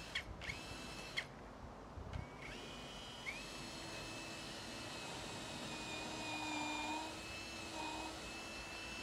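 Cordless drill working into a log: a few short bursts that whine up in pitch, then a long steady run from about three seconds in. Its pitch sags a little and it gets a little louder about two-thirds of the way through, as it comes under load.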